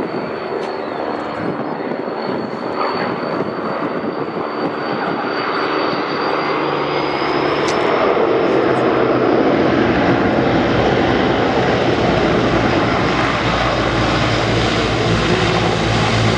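Transall C-160 transport aircraft's two Rolls-Royce Tyne turboprop engines as it touches down and rolls along the runway. A steady high turbine whine sits over a dense propeller drone. The sound grows louder from about halfway, as deeper propeller tones come in.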